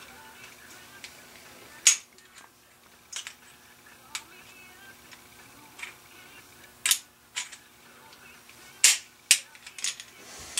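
Scattered sharp metallic clicks and clacks, about nine in all, from the steel slide and frame of a Smith & Wesson Performance Center 1911 pistol being handled and fitted together during reassembly, over a faint steady hum. The loudest clicks come about two seconds in and again near nine seconds.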